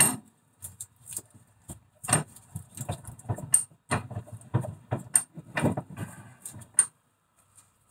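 Irregular metallic clicks and knocks from a rusty car front hub assembly being handled in a bench vice, stopping near the end.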